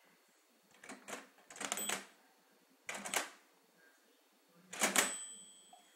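Toy cash register keys pressed in three quick clusters of mechanical clacks, ringing up a sale, with a short ringing tone after the second and third.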